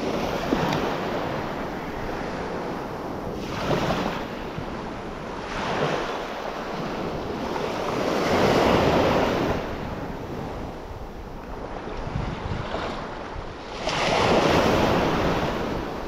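Sea waves breaking on a beach, the surf swelling and washing in every few seconds, loudest about halfway through and near the end, with wind on the microphone.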